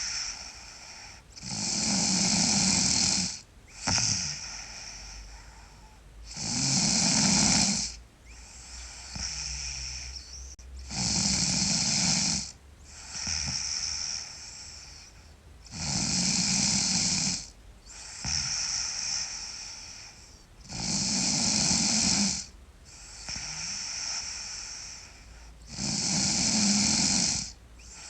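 A sleeping girl snoring loudly and regularly. There are six loud snoring breaths about five seconds apart, each followed by a quieter breath.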